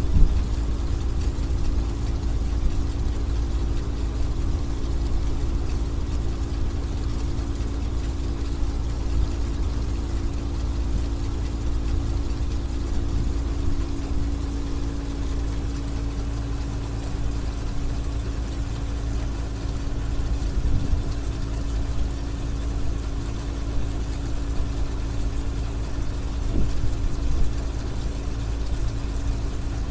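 New Holland combine harvester's diesel engine running at a steady speed with a constant low rumble and hum, driving the unloading auger that empties harvested rice into a lorry.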